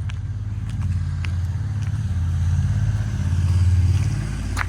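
Car engine running with a steady low drone that swells slightly about three-quarters of the way through, with a few faint clicks above it.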